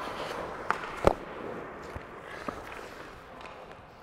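Skate blades scraping across the ice as the goalie pushes across the crease. A sharp knock of a hockey puck comes about a second in, with lighter clicks after it.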